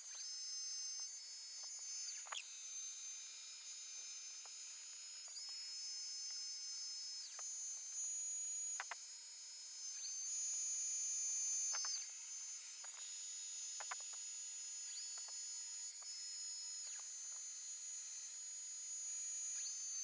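High-pitched whine of a desktop CNC router's spindle, a compact trim router, running a round-over bit along the edge of a pine board. One tone in the whine climbs, holds and drops back every few seconds as the cut goes on, with a few faint clicks.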